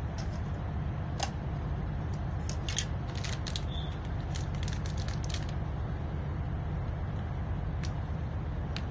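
Plastic snack wrapper crinkling in the hands, with a cluster of crackles in the middle and a few single clicks, over the steady low rumble of the train carriage.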